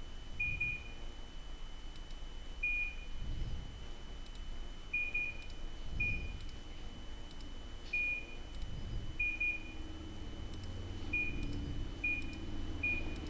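Air conditioner's indoor unit beeping: about ten short, high single beeps spaced a second or two apart, each its acknowledgement of a received infrared remote command. A faint steady high tone runs underneath.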